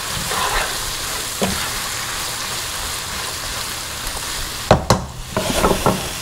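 Onions frying in butter and oil in a hot pan: a steady sizzle. A stirring utensil knocks against the pan once early on and several times near the end.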